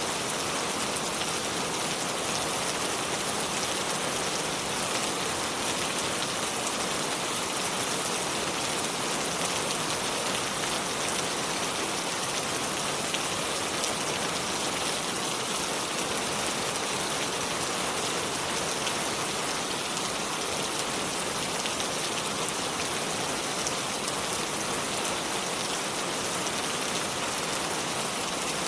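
River water flowing over stones: a steady, unbroken rush of water.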